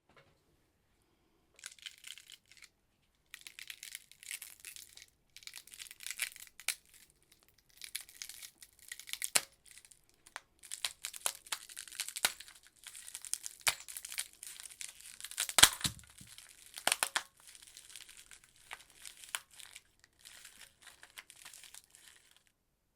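Foley ice-cracking effect: irregular runs of high crackling broken by short pauses, with a few sharp snaps, the loudest about two-thirds of the way through.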